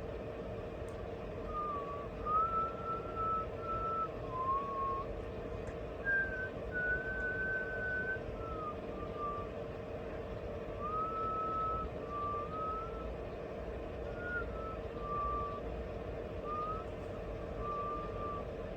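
A person whistling a slow melody in long held notes with small steps and slides, over a faint steady hum.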